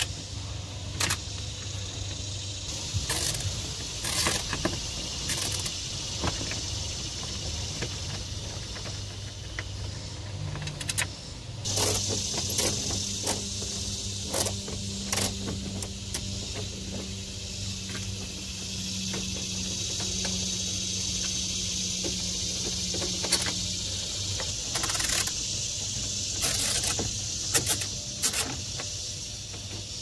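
Scattered clicks and knocks of a screwdriver and hands working at a car's plastic lower dashboard trim, over a steady background hiss and low hum. A faint low hum holds through the middle of the stretch.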